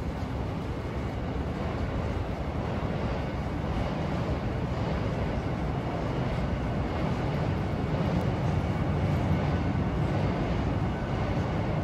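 Steady low rumble of city ambience, traffic-like, growing a little louder through the middle.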